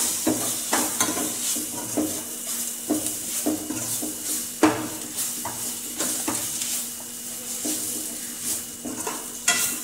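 Onion-tomato masala frying with a steady sizzle in a steel pan while a utensil stirs and scrapes it, knocking against the pan about twice a second. The spices are being sautéed into the onions.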